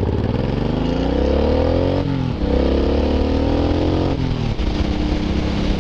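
Suzuki Boulevard M109R's 1783 cc V-twin under hard acceleration. The revs climb, dip briefly at an upshift about two seconds in, and climb again. At another shift about four seconds in they drop and settle to a steady lower note.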